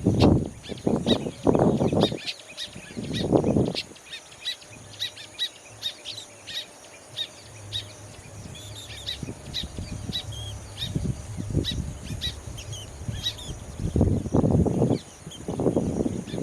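Weaver birds chirping and chattering in many quick short notes, with loud bursts of low rumble near the start and again near the end.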